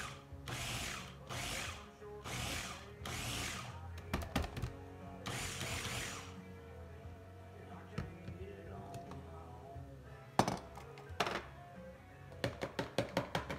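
Electric mini food chopper pulsed in short whirring bursts, four in the first few seconds and a longer one about five seconds in, chopping grilled peppers. Near the end come clicks and a quick run of light knocks as the chopper bowl is handled, with background music underneath.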